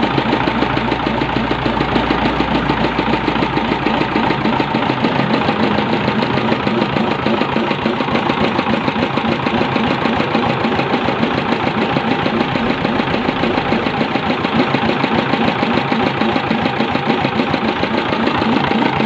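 Small Dompeng-type diesel engine running steadily, with a rapid, even firing beat.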